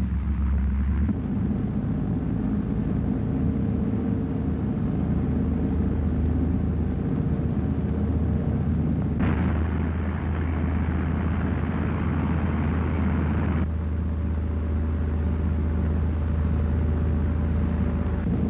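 Flying boat's piston engines droning steadily in flight. For about four seconds near the middle, a brighter hiss comes in over the drone and then cuts off sharply.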